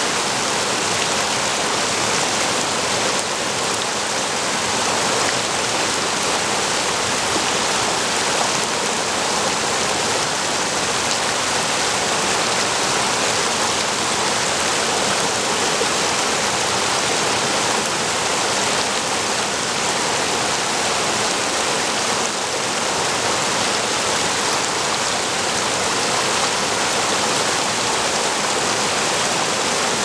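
Water pouring steadily over a low weir and churning into the pool below it, a continuous rushing sound.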